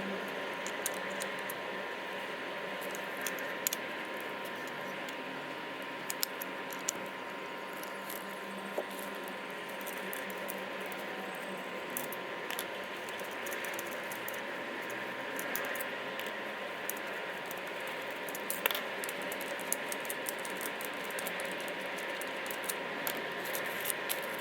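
Scattered light clicks and rattles of computer hardware being handled, over a steady hiss with a faint constant tone.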